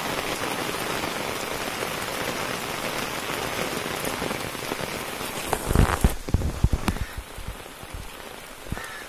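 Steady, dense rain falling on a concrete path and the fields beside it. About five and a half seconds in, a few loud thumps come close together, and after them the rain sounds fainter for the last few seconds.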